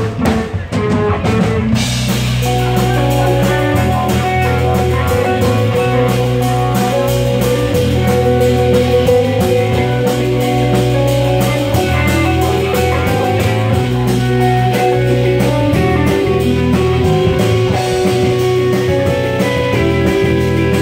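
Live band playing a steady rock groove: electric guitars, keyboard and drum kit over deep sustained bass notes, with a regular beat. The music is sparse at first and the full band fills in about two seconds in.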